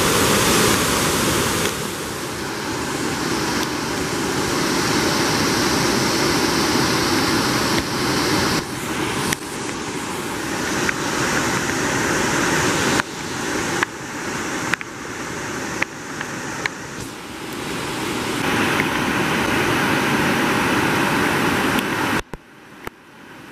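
Creek in flood rushing over rock slabs as whitewater rapids: a loud, steady rush of water. The level jumps abruptly several times and falls away sharply near the end.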